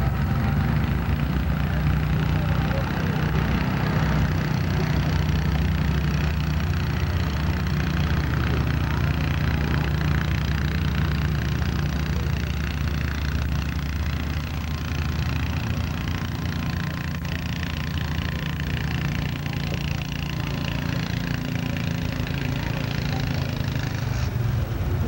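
Farm tractor engine running steadily, a low even drone that holds the same pitch throughout.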